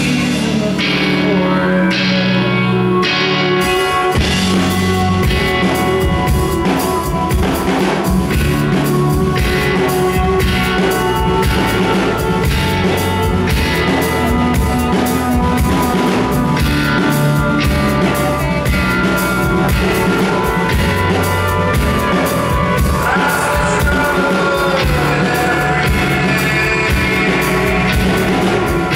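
Live rock band playing a song: archtop guitar with bass and a drum kit that comes in with a steady beat about three and a half seconds in, mostly instrumental.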